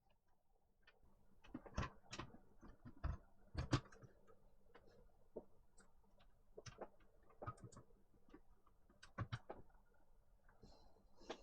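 Irregular clicks and knocks of a laptop's plastic housing parts being handled and fitted together during reassembly, with a few louder knocks about two and four seconds in and again past nine seconds.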